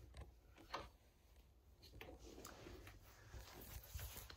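Near silence: room tone with a few faint, scattered taps and rustles.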